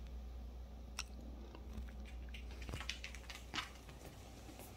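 Small dog chewing and mouthing a plush toy: scattered soft crackles and clicks, with a few sharper clicks about a second in and around three to three and a half seconds.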